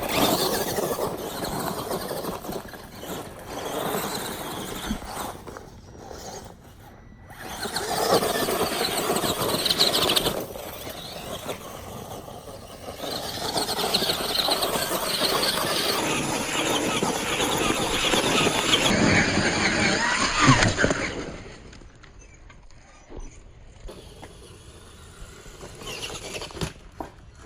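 Radio-controlled monster truck being driven hard, its motor whining and squealing with tyre noise. It comes in several long bursts, quieter near the end.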